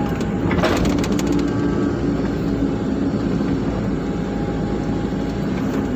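Hydraulic excavator's diesel engine running steadily under load, heard from inside the cab, as the bucket digs soil. A few short clicks about a second in.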